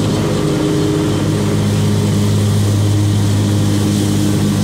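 Zero-turn lawn mower's engine running steadily while mowing: a constant loud drone with a strong low hum.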